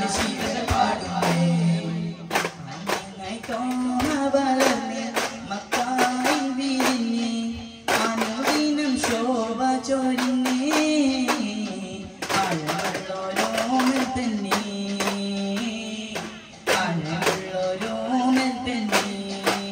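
Duff muttu: a melodic devotional song sung over frequent sharp strikes of daf frame drums.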